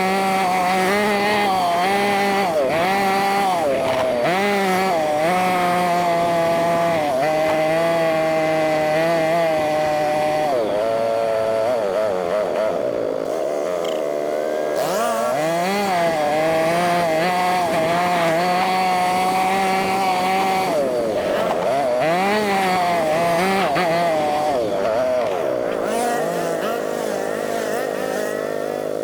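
ATV engine running under a rider on a trail, its revs rising and falling again and again as it speeds up and slows, settling to a steadier note near the end. The audio is sped up, which raises the engine's pitch toward a buzzy, chainsaw-like whine.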